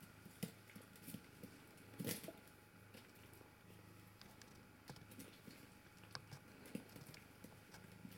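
Faint scattered pats, scuffs and scratches of kittens' paws and claws on a rug and wicker basket as they play-fight, with a louder scuffle about two seconds in.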